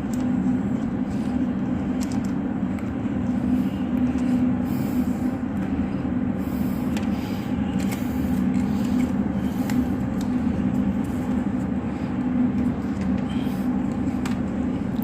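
A steady mechanical hum, even in level throughout, with a few faint clicks and taps of handling.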